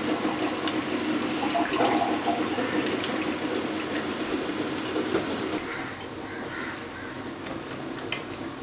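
Orange halves squeezed in a cast-iron lever-press citrus juicer, with juice running down into a glass: a steady, wet, gushing noise that eases off after about six seconds.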